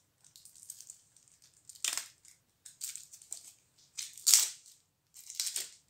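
Plastic shrink-wrap being torn off a pack of game cards and crinkled in the hands: a few short crackling rustles, the loudest about four seconds in.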